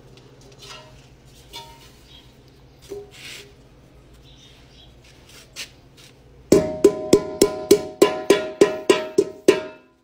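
Metal pot banged repeatedly on a concrete floor: about eleven quick ringing metallic strikes, three to four a second, starting about six and a half seconds in. It is a signal to call pigeons to come and feed.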